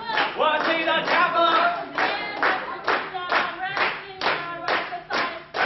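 Steady clapping on a beat, about two claps a second, with voices singing over it.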